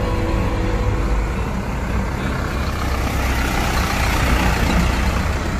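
Truck engine running as the truck drives past close by. The noise swells as it passes, about three to five seconds in.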